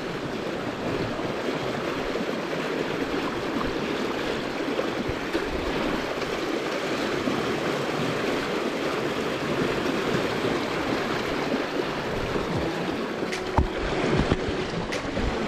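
Shallow river rushing steadily over a stony bed, an even wash of water noise. A few short clicks and knocks come near the end.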